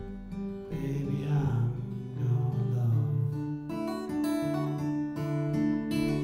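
Acoustic guitar played solo in a roots-blues style, picked and strummed chords and single notes ringing out, changing every second or so.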